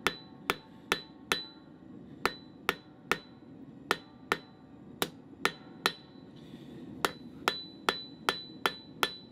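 Hand hammer striking a red-hot steel rod on an anvil, about two to three blows a second with two brief pauses. Each blow is a sharp, ringing clang. The rod is being drawn down into four square facets to start a taper.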